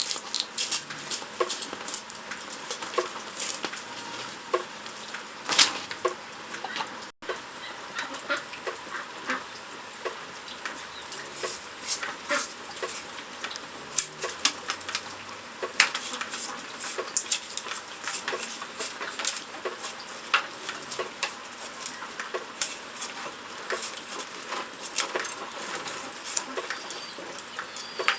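Farmyard chickens and ducks, with many small sharp clicks and taps coming irregularly.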